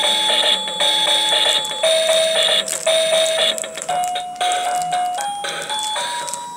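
Electronic toy melody from a baby walker's musical activity tray: simple bell-like beeping notes about a second each, stepping up in pitch over the second half.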